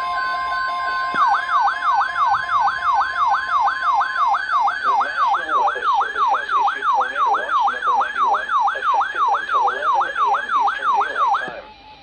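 Electronic emergency-alert tone: a steady beep for about a second, then a fast siren-like yelp whose pitch sweeps down and back up about three times a second. It cuts off suddenly near the end.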